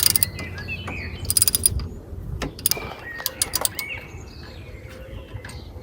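Socket ratchet clicking in several short bursts of rapid clicks as the front brake caliper bolts are cracked loose and wound out. Birds chirp faintly in between.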